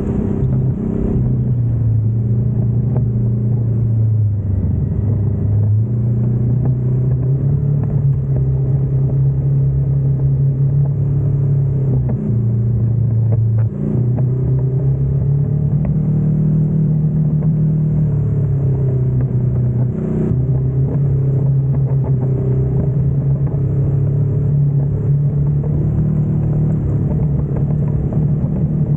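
Side-by-side UTV engine running under way on a dirt trail, a steady drone whose pitch rises and falls with the throttle, dipping briefly a few times.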